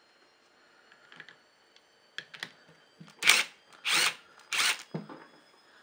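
Cordless driver undoing the camshaft sprocket bolt on a Yamaha 125 four-stroke engine, in short trigger bursts. There are a couple of brief bursts about two seconds in, then four loud ones in quick succession over the next two seconds.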